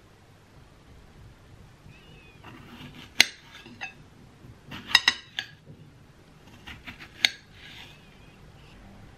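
Kitchen knife slicing strawberries on a glass plate, the blade clinking against the glass several times with a brief ring; the loudest clinks come about three, five and seven seconds in.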